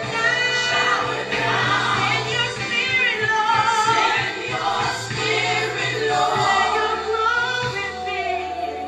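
Gospel song with a choir singing over a held bass note.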